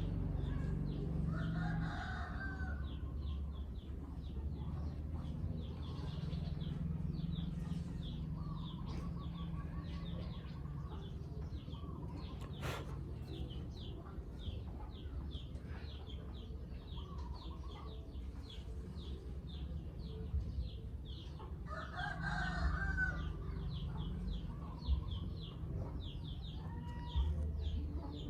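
Chickens calling, with a few longer crowing or clucking calls, over a steady run of short high chirps.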